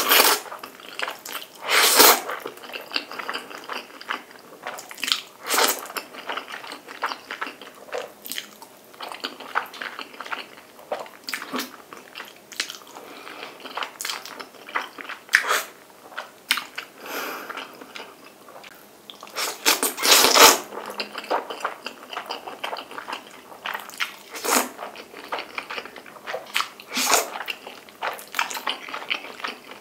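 Jjapagetti black-bean noodles being slurped and chewed: a string of loud slurps every few seconds, the longest a little past the middle, with wet chewing in between.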